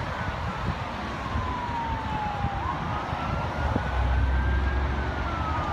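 An emergency vehicle siren wailing: a slow wail whose pitch falls for about two and a half seconds, climbs again for about two seconds, then starts falling near the end. Underneath runs a steady rushing background, with a low rumble swelling about four seconds in.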